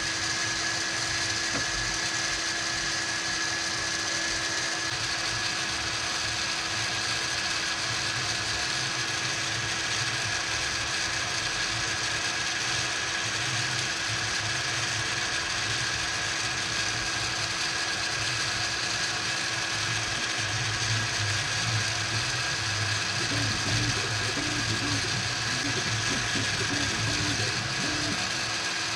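3D printer running mid-print: its stepper motors make a steady mechanical whir and buzz with a constant high whine. In the last few seconds the motor tones waver in pitch as the moves change.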